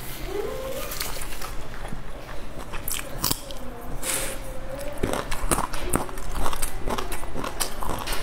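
Close-miked chewing and mouth sounds of someone eating a soft stuffed bun, with many short, wet smacking clicks.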